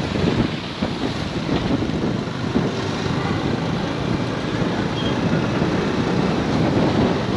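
Steady wind noise on the microphone over the sound of street traffic.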